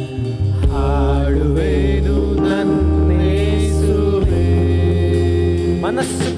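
Christian worship song in Kannada: a singer's voice with vibrato over instrumental backing with steady held bass notes.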